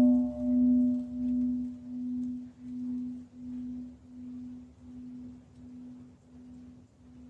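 Large bronze Japanese temple bell (bonshō) at Mii-dera ringing out after a strike: a low hum that throbs about three times every two seconds and slowly fades away, its higher overtones dying out first.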